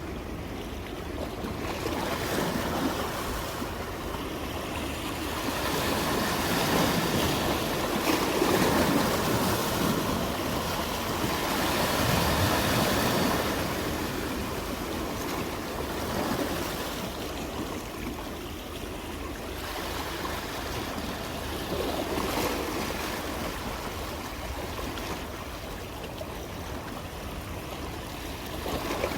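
Sea waves breaking and washing ashore, the surf noise swelling and falling back over several seconds at a time, loudest in a long surge from about six to thirteen seconds in.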